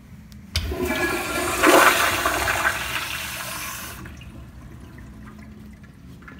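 Commercial flushometer toilet with a TOTO bowl flushing. A loud rush of water starts suddenly about half a second in, peaks a second or so later, and cuts off around four seconds in as the valve closes, leaving a faint trickle.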